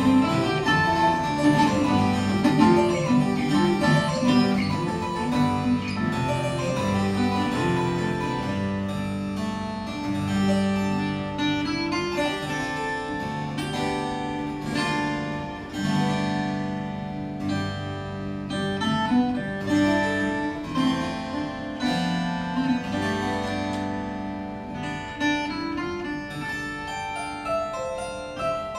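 Harpsichord and viola de cabaça, a gourd-bodied Brazilian viola, playing together in an instrumental duo: quick plucked notes from both, growing slightly quieter toward the end.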